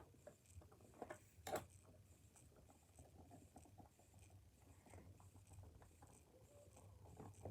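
Faint small clicks and taps of hands handling a reassembled plastic Xbox controller, with a couple of sharper taps in the first second and a half.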